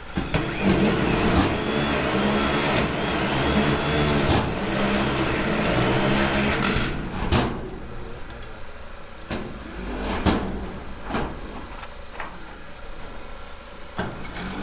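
Corded power drill whirring for about seven seconds as it drives screws into metal awning sheeting, followed by several sharp knocks.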